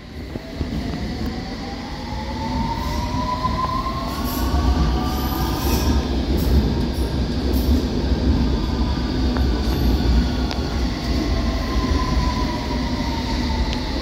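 London Underground S Stock (Bombardier Movia) train on the move: the whine of its electric traction motors climbs in pitch over the first half, then a falling whine follows near the end, over a heavy low rumble of the train on the rails that swells in the middle.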